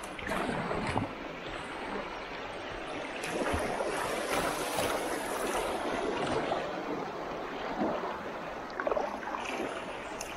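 Shallow river riffle rushing steadily around a kayak as it runs through, with water splashing against the hull.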